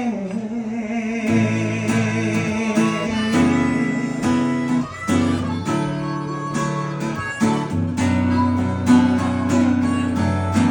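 Acoustic guitar playing the instrumental ending of a country song: strummed chords and picked notes. A held final sung note carries over and fades about a second in.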